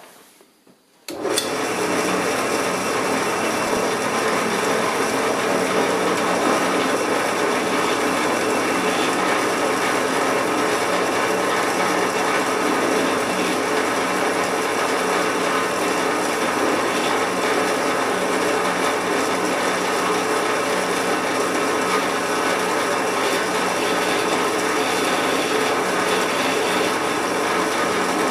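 Drill press motor starts about a second in and runs steadily while a 1/8-inch bit drills a pilot hole into metal held in a drill-press vise.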